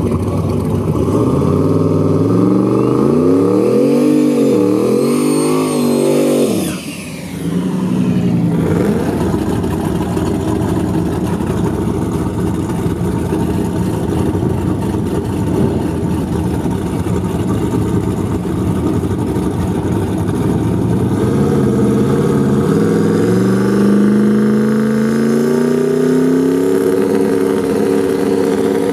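Turbocharged LS V8 in a Chevrolet Silverado drag truck, revved in repeated blips, then idling steadily; in the last several seconds the revs climb steadily before the launch.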